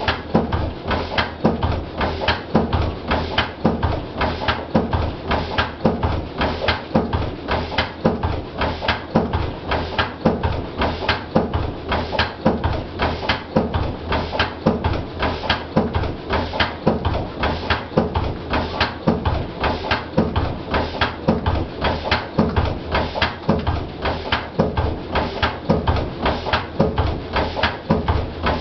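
Lister CS slow-speed single-cylinder diesel engine running steadily, each firing stroke giving an even, regular beat.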